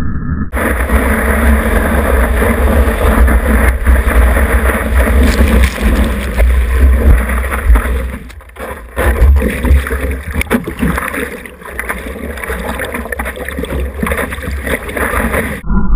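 Water rushing and splashing around a surfboard-mounted action camera, with wind buffeting its microphone as a deep rumble. It starts and stops abruptly and dips briefly about halfway through.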